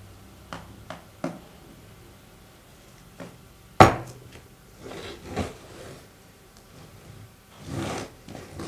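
Handling an OnePlus 11R phone box and its packaging: a few light clicks and taps, one sharp knock a little under four seconds in, then short stretches of rustling and sliding.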